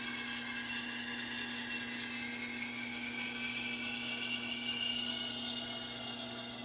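Powered sharpener running steadily with a motor hum while it grinds the edge of a high-carbon German steel Santoku held in an angle jig: a continuous whirring grind whose pitch comes from the carbon steel.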